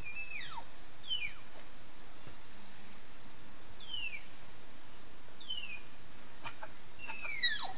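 Tapir whistling: a series of about six high, thin whistles, each falling sharply in pitch, with the loudest ones coming close together near the end.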